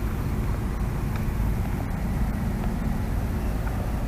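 Steady low rumble of wind buffeting an action camera's microphone.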